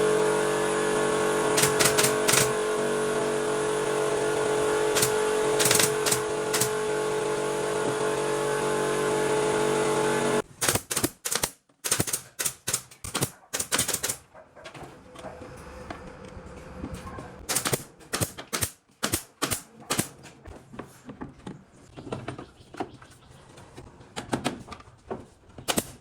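A power tool's motor runs steadily at one pitch for about ten seconds and then stops abruptly. It is followed by an irregular string of sharp clicks and knocks, several a second.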